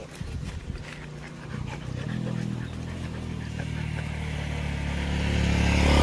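A motorcycle approaching: its engine comes in about two seconds in and grows steadily louder.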